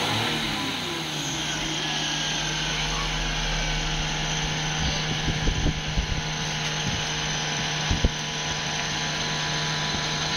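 Steady machine hum with hiss, like a small motor running, with a few dull low knocks about five to eight seconds in.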